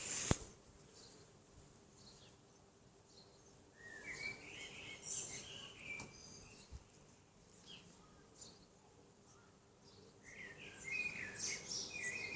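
Faint birds chirping in two short spells, with a single sharp knock just after the start.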